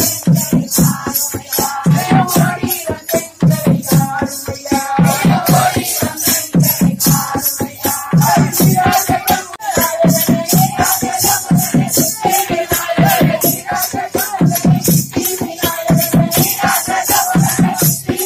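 Music for the oyilattam folk dance: a steady, driving beat with a jingling rattle on every stroke under a wavering sung melody.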